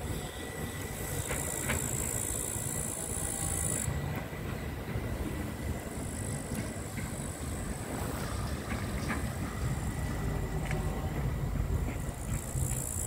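A train running, heard as a steady low rumble with scattered light clicks. A high hiss stops abruptly about four seconds in and comes back near the end.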